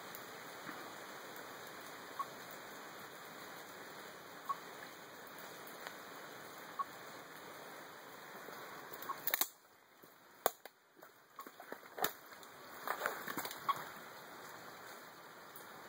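Steady hiss of running water from a small mountain stream, with faint short beeps about every two seconds from a radio-telemetry receiver picking up the tagged snake's transmitter. About two-thirds through, the sound briefly drops out, followed by a few knocks.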